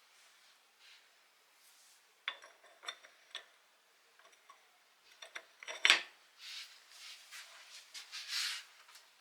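Small metal oil-pump parts clinking and tapping against each other as they are fitted together, with the loudest knock about six seconds in, followed by a few seconds of metal rubbing on metal.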